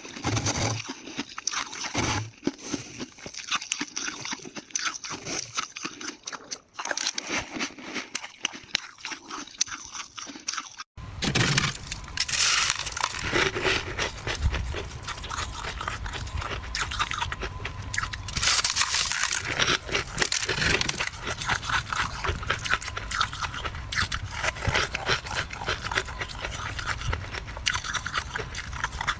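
Dry, flaky freezer frost being bitten and chewed close to the microphone: dense, crisp crunching and crackling. About eleven seconds in, the sound cuts and a steady low hum runs under the crunching.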